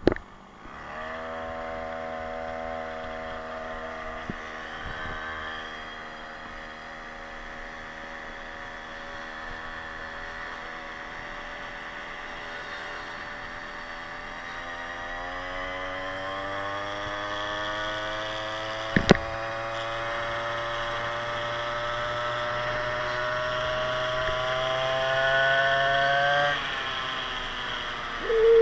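Motorized scooter's small two-stroke engine, rebuilt with a 52cc big-bore cylinder, running under throttle while riding. Its note holds steady at first, then rises steadily for about twelve seconds as the scooter speeds up, and drops off suddenly near the end when the throttle is let off. A single sharp knock comes about two-thirds of the way in.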